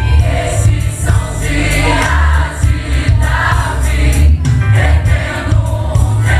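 Gospel worship music: voices singing together over a band with heavy bass and a steady drum beat.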